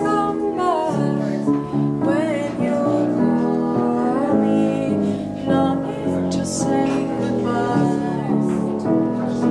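Instrumental passage of a live acoustic song: a Petrof upright piano playing chords together with plucked strings, and a wavering melody line over them.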